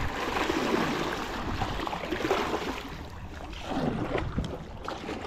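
Fast river water rushing and splashing around a small paddled boat running through a riffle, with a few short knocks near the end.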